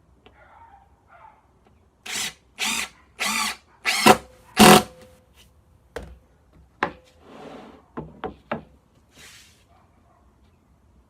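Impact driver with a Robertson bit driving a screw into a wooden chair slat in five short bursts, followed by several sharp knocks and clicks of wood being handled.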